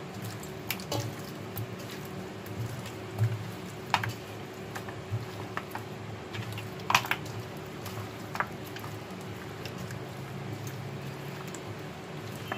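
Hands squishing and turning wet raw chicken pieces in a marinade in a metal bowl. A few sharp clicks come from the meat or fingers knocking the bowl, the clearest about four and seven seconds in, over a steady low hum.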